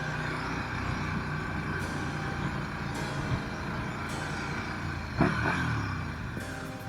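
KTM 1290 Super Duke R's V-twin engine running under way, with wind rushing past and a brief louder swell about five seconds in.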